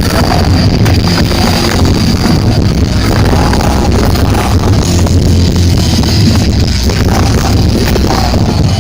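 Live punk rock band playing loud through a festival PA, captured as a distorted, bass-heavy roar by an overloaded microphone.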